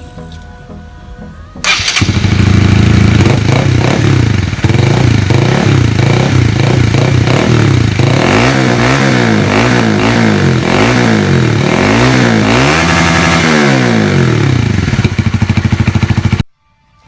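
Honda CBR150R single-cylinder engine running through a replica Akrapovic slip-on muffler with the dB killer fitted: it starts about two seconds in and idles, is revved in a series of quick throttle blips, settles back to idle and cuts off suddenly near the end.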